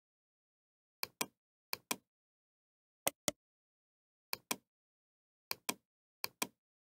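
Computer mouse button clicking: six quick pairs of sharp clicks, a second or so apart, with silence between.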